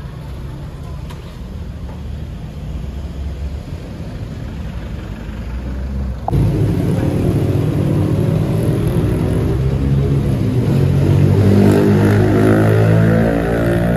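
Low, steady rumble of street traffic with cars passing. About six seconds in it cuts abruptly to a louder sound made of short steady tones that step up and down in pitch.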